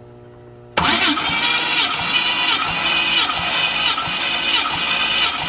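Twin-turbo Mustang engine being cranked over on its starter motor for a compression test, cutting in suddenly about a second in with a steady, evenly pulsing churn. The cranking builds pressure on the gauged cylinder, and it is a check for air escaping at the open radiator filler, which would mean a cracked cylinder.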